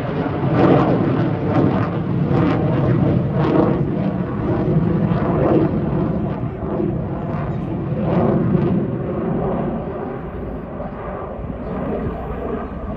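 Display aircraft flying past at an airshow: a loud engine roar, strongest for the first nine seconds or so, then easing off a little.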